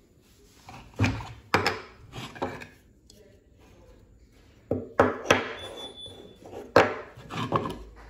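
Wooden desk-calendar blocks and cards being handled and set down on a wooden desk and into their holder: a series of light wooden knocks and clacks, about four in quick succession after a second, then a pause, then about five more in the second half.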